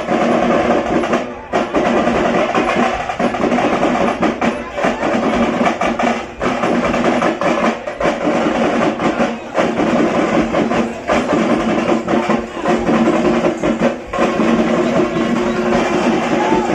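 Tamate, the Karnataka folk frame drum, being played with sticks in fast, dense drumming.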